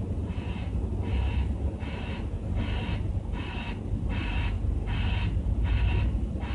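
Reversing alarm on paving equipment beeping evenly about once every three-quarters of a second, over a steady low engine rumble.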